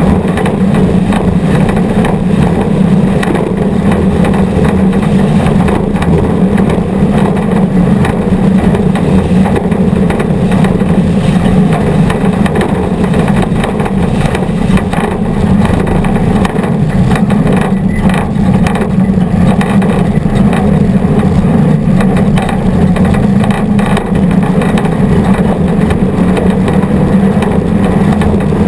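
Off-road race vehicle's engine running steadily at racing speed, heard from onboard.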